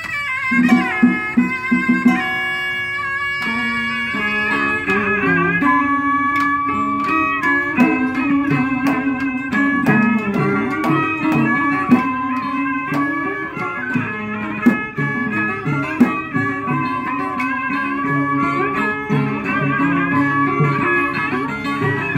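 Vietnamese traditional Cao Đài ritual ensemble playing an instrumental piece: bamboo flute and plucked zither and lutes carry the melody over drums, with a few sharp percussion strokes in the second half.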